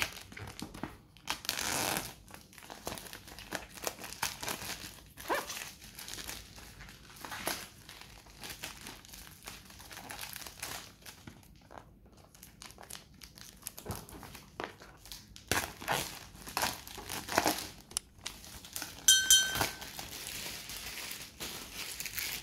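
Clear plastic shrink wrap crinkling and tearing as it is peeled off a cardboard box, with irregular rustles and crackles. A brief high squeak near the end is the loudest sound.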